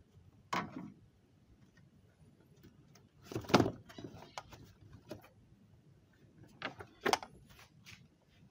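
Hard plastic air filter box lid and panel air filter being lifted and handled in a Volkswagen Amarok's engine bay: a few separate plastic knocks and scrapes, the loudest about three and a half seconds in, with quieter rustling between.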